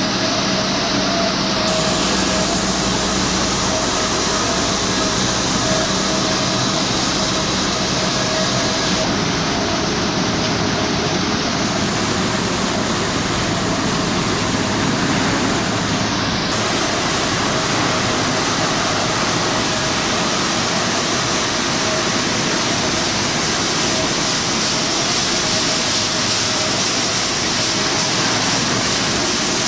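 Pet food extrusion production line running: a steady, loud machinery noise with a constant whine, with no clear starts or stops.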